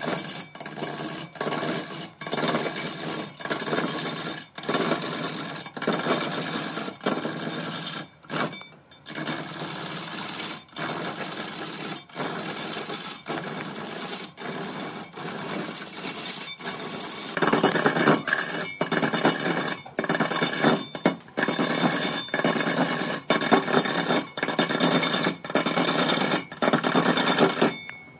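Wood lathe turning a piece of wood, a tool cutting into the spinning wood. The sound breaks off for an instant every second or so, and from about two-thirds of the way in it grows fuller and deeper.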